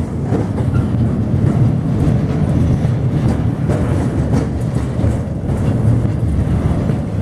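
Freight train boxcars rolling past: a steady low rumble of steel wheels on the rails, with scattered clacks and knocks from the wheels and cars.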